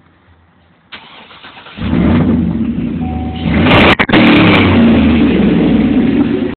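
Chevy 2500HD pickup starting up through its Borla aftermarket exhaust, heard from inside the cab: a short, quieter stretch of cranking about a second in, then the engine catches just under two seconds in and runs loudly and steadily.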